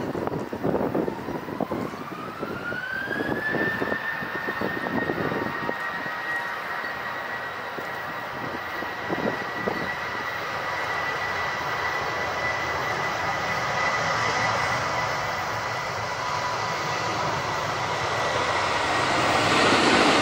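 Boeing 777 jet engines on a taxiing airliner: a turbine whine rises in pitch over the first few seconds as thrust comes up, then holds steady over a broad jet rush. The rush swells louder near the end.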